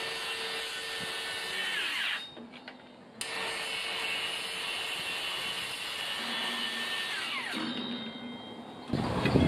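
DeWalt cordless power tool cutting into timber: a steady motor whine for about two seconds that winds down, a brief pause, then a second run of about four seconds that winds down again. A louder, rougher noise starts near the end.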